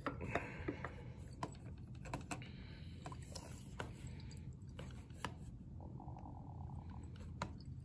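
Faint scattered clicks and taps from handling a stoppered glass reaction flask and a data-logger touchscreen, over a low steady hum.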